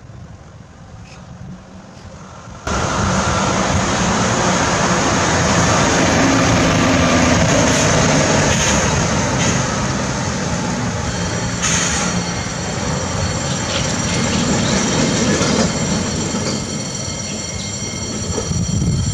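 Heavy road traffic rumbling over a railway level crossing, led by a tanker lorry, comes in suddenly about three seconds in. From about halfway a steady high ringing joins it: the level crossing's warning bell as the red lights come on.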